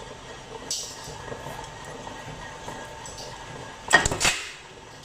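Mechanical punch press ram coming down about four seconds in with a loud metallic clank, two hits in quick succession, pressing a colander's wire mesh and rim ring tightly together on the die. Before it, there are light clinks of the steel parts being set in place.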